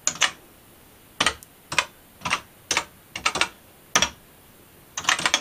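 Keys of a BBC Micro keyboard being pressed one at a time, about a dozen separate clacks spread out as a command is typed, with a quick run of strokes near the end.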